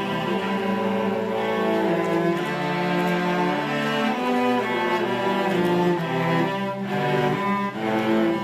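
A student string ensemble playing, with cellos and double basses prominent under the higher strings, in held notes that change about every second.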